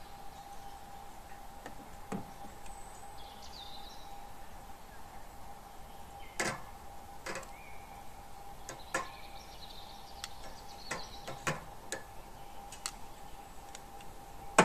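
Metal tongs clicking and clacking against a charcoal grill's grate as food is laid on, several sharp clicks from about six seconds on, over a faint steady hum. A few birds chirp in the background.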